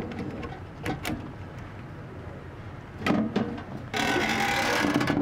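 Handling noise from a metal downlight retrofit kit and its flexible metal conduit being fed through a recessed can: a few short knocks and rattles, then a longer scraping rush about four seconds in.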